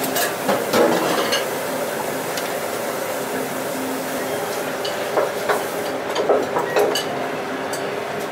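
Steady background noise of a small ramen shop's kitchen and dining room with a faint hum, and light clinks of a drinking glass and tableware about a second in and again around five to seven seconds in.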